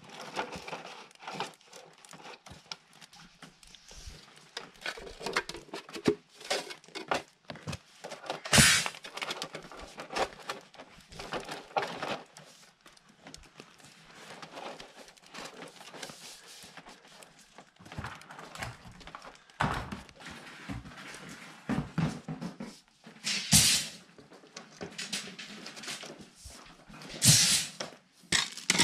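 Plastic drain pipe being handled and laid on crushed-stone gravel: irregular crunching of stones and knocks and scrapes of the pipe, with a few louder scrapes about nine seconds in and twice near the end.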